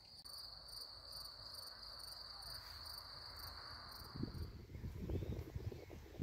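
Crickets trilling in grass: a steady, high, continuous chirring with faint rhythmic pulses above it. The trill cuts off about four and a half seconds in, giving way to low rumbling wind on the microphone.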